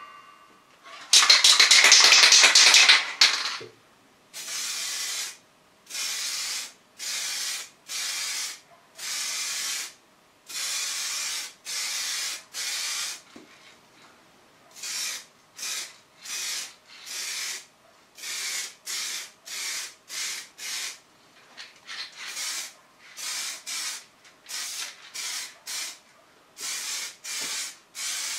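Aerosol can of primer spraying in short bursts of hiss. The first burst, about a second in, is the loudest and longest; after it come many short squirts of half a second to a second each, closer together near the end.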